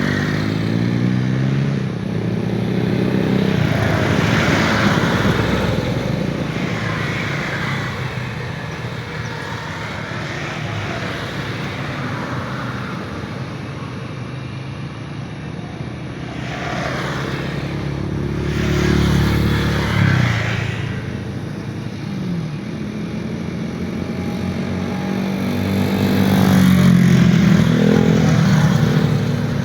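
Road traffic: motorcycles and cars passing one after another, the engine pitch bending as each goes by, with the loudest passes about four seconds in, near the middle and near the end.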